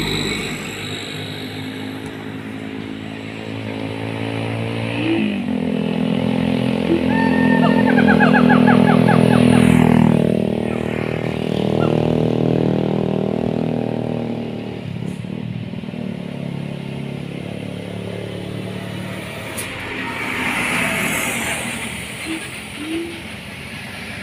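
Siamang gibbons calling: long, loud, wavering calls, loudest about a third of the way in, with a quick run of short rising notes in the middle of that loud stretch.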